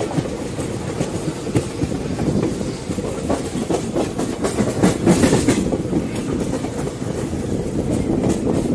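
Passenger train running, heard from an open coach doorway: a steady rumble of the coaches with the clickety-clack of wheels over rail joints, heavier clatter about halfway through. The train is pulling out of a station.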